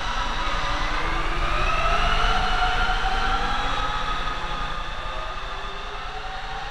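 Electric motor and propeller of an RC Yak model airplane whining in flight, the pitch sliding up over the first couple of seconds, then levelling off and easing down as it flies by.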